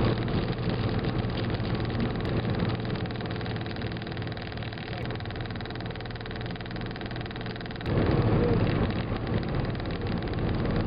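Car cabin noise while driving on a highway: a steady drone of engine and tyres. About eight seconds in, a sudden louder rush sets in and fades over a second or two.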